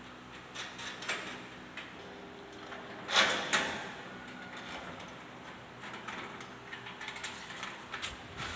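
Small metal clicks and clatter of bolts, nuts and the side-rail bracket being fitted to a steel hospital bed frame, with a louder burst of metal knocks about three seconds in.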